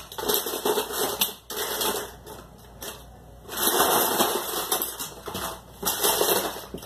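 Rummaging through a parts box of plastic Snap Circuits pieces: rustling and light clattering in two spells, with a lull between them.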